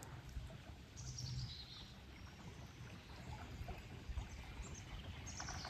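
Faint riverside ambience: a bird gives short calls falling in pitch, about a second in and again near the end, over a low rumble, with a quick run of ticks at the very end.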